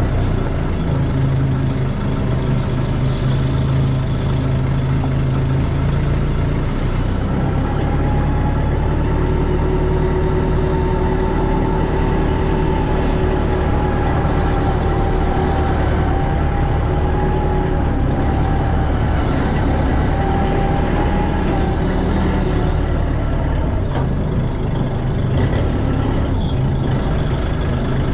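Heavy diesel engine running steadily. A wavering whine comes in about eight seconds in and fades out about fourteen seconds later.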